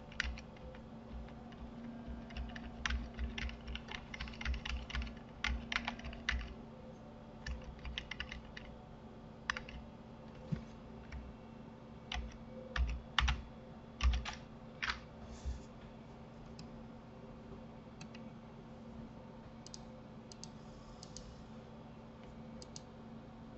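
Computer keyboard and mouse being worked: irregular clusters of key taps and clicks, busy for the first fifteen seconds or so and then only a few, over a steady low hum.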